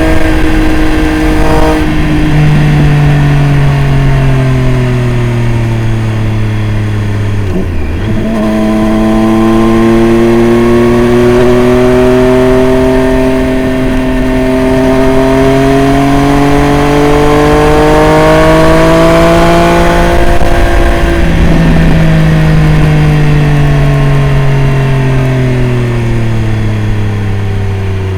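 Triumph Street Triple RS's 765 cc inline-three engine breathing through a Jeskap aftermarket exhaust, running loud and steady under way. Its note sags for the first several seconds, climbs slowly for about twelve seconds as it pulls, then falls away again.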